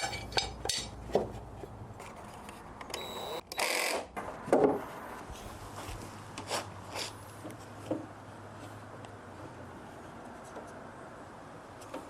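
Scattered knocks, clinks and rubbing from handling wood and hardware at a workbench, with a brief high tone and a noisy burst about three seconds in followed by a sharper knock, then a few quieter clicks.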